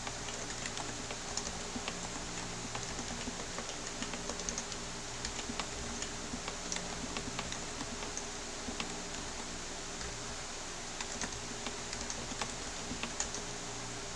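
Typing on a split Topre keyboard prototype: a steady, irregular run of key presses on its capacitive rubber-dome switches, over a faint steady low hum.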